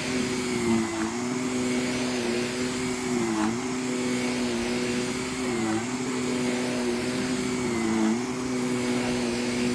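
Vacuum cleaner running steadily as it is worked over a rug, its motor hum dipping briefly in pitch every second or two.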